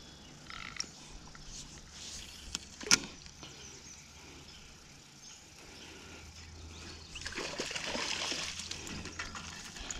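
Water splashing and sloshing in the last few seconds, a hooked rainbow trout thrashing at the surface of a shallow creek as it is brought in, preceded by one sharp click about three seconds in.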